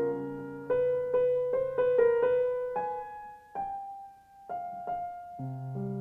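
Slow solo piano music: a melody of single notes, thinning to one fading note about four seconds in, before a low bass note enters near the end.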